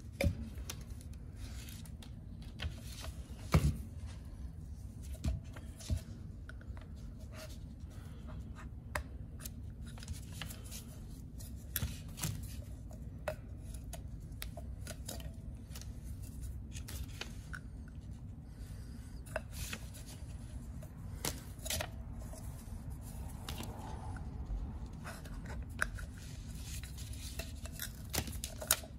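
A metal pick and gloved fingers working on a plastic oil filter canister cap: scattered small clicks, scrapes and rubs as the old O-rings are picked off its stem, over a steady low hum.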